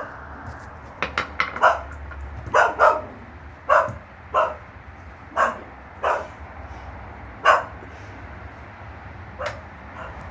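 Dog barking repeatedly: about a dozen short, sharp barks in irregular groups, some in quick pairs, with gaps of a second or more between groups.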